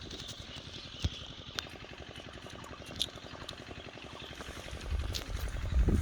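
A small engine running steadily with fast, even pulses, with a few sharp clicks over it and a louder low rumble coming in near the end.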